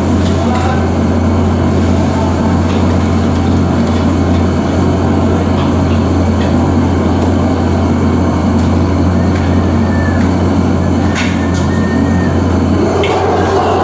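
A commercial wok burner on high flame and the kitchen exhaust hood running steadily with a deep hum, and a few sharp metal clinks of a utensil against the wok, mostly in the second half.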